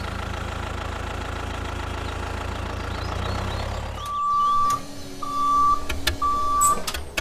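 Steady low tractor engine hum, then three evenly spaced reversing beeps starting about four seconds in, with a few light clicks between them: the reverse warning of a tractor backing up.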